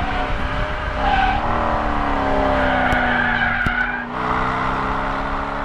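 Stock C5 Corvette Z06's LS6 V8, heard from inside the cabin at speed. About a second in the revs jump with a gear change, then the engine note slowly falls. The tyres squeal through a corner for about a second and a half before the engine settles into a steady pull near the end.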